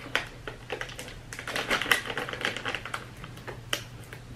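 Plastic treat bags crinkling and rustling as they are handled, in a quick irregular run of sharp crackles.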